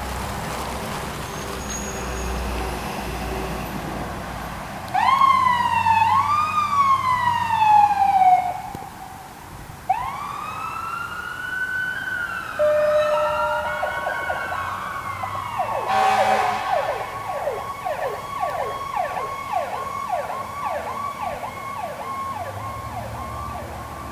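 Ambulance electronic siren starting up after a few seconds of vehicle rumble: two quick rising-and-falling wails, then a slower wail, then a fast yelp of about two to three sweeps a second. A steady air-horn tone sounds alongside the siren from about halfway through.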